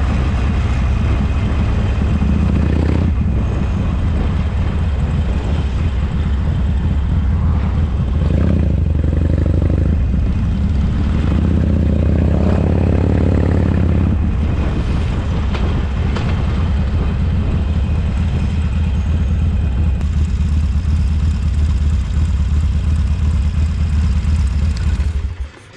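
Harley-Davidson Forty-Eight's air-cooled V-twin running under way, a loud steady low rumble. The engine note climbs and drops around the middle, and the sound cuts off suddenly just before the end.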